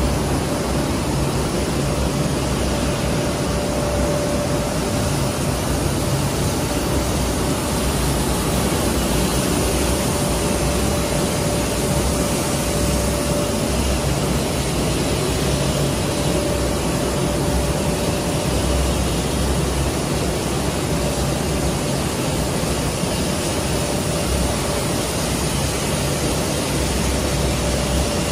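Extrusion laminating machine running: a steady, even machine noise from its motors and turning rollers, with a constant mid-pitched whine over a low hum.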